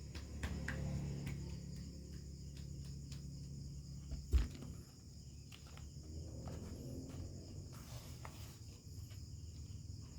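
Small clicks and taps of hands working on loudspeaker parts during a repair, with one sharp low thump about four seconds in, over a steady low background hum and a faint steady high-pitched ring.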